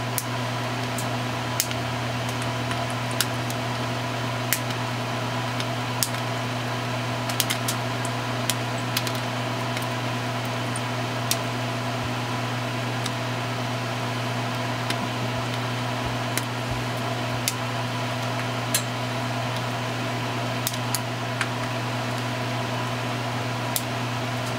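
Flush cutters snipping excess wire and component leads off the back of a small circuit board: irregular sharp clicks a second or a few seconds apart, over a steady electrical hum.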